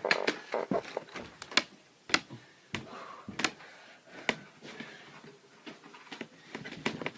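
Irregular sharp clicks and knocks of a plastic action figure being handled and knocked about as someone tries to break it.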